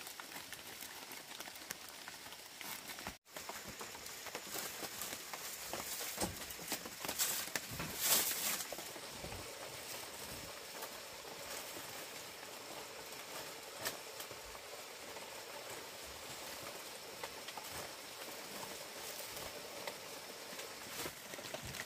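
Dry palm-leaf thatch rustling and crackling as bundles of leaves are handled and laid on a bamboo roof frame, with scattered light taps. The sound cuts out briefly about three seconds in, and there is a louder burst of crackling about eight seconds in.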